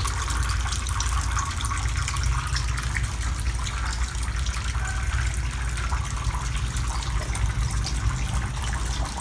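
Water running and splashing steadily into an eel-rearing tank, over a steady low hum.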